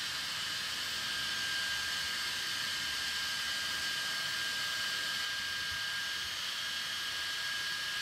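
Bambu Lab X1 Carbon 3D printer running its device self-test: a steady whooshing hiss with a thin high tone held throughout.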